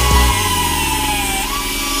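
Pneumatic cut-off tool's thin abrasive disc cutting a polished steel exhaust tip: a steady high whine that sinks in pitch as the disc bites and jumps back up about three quarters of the way through as it eases off. Bass-heavy electronic music plays over the first moment.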